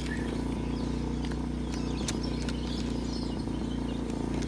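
A small portable generator running steadily at light load, before the air conditioner's compressor kicks in. Over it come a few sharp metal clicks from a socket driver on bolts, and birds chirping.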